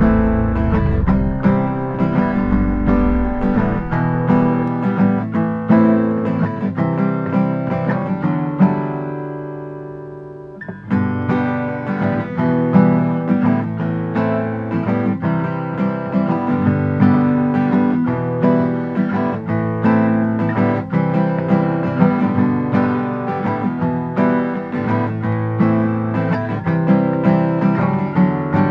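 Guitar music with picked notes and strummed chords in a steady rhythm. About ten seconds in it fades on a held chord, then starts up again.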